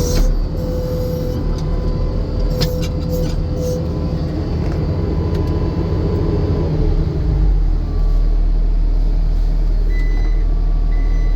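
New Holland C245 track skid steer's diesel engine running, its note changing about two-thirds of the way through. Near the end a backup alarm starts beeping about once a second.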